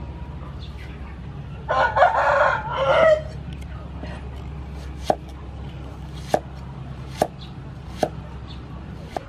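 A rooster crows once, about two seconds in; it is the loudest sound. Later a cleaver slicing through onion knocks on a wooden chopping block five times, roughly a second apart.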